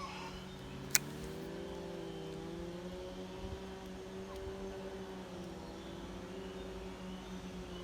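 A steady motor hum whose pitch slowly wavers, with one sharp click about a second in.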